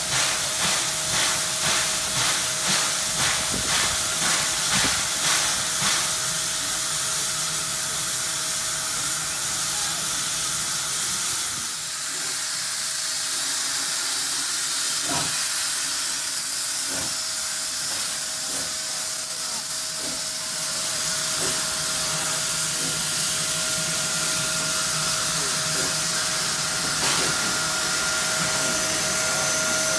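NSWGR 59-class steam locomotive 5917 working a train past: exhaust chuffs at about three every two seconds for the first six seconds. Then a steady hiss of steam and the rumble of the engine and carriages rolling by, with a couple of sharp clanks midway.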